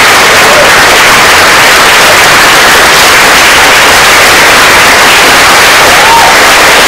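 Audience applauding: loud, dense clapping from a large crowd, with a couple of short whoops, one about six seconds in.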